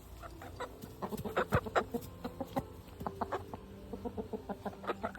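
Chickens clucking: many short, sharp calls in quick, irregular succession, starting about a second in.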